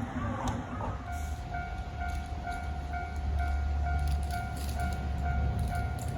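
Japanese level-crossing alarm starting about a second in: a single electronic ding repeating about twice a second, with a low rumble under it for several seconds.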